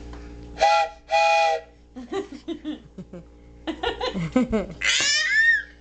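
A toy train whistle gives two short toots about a second in, each a steady chord of several tones. Near the end comes a loud, high squeal that rises and then falls.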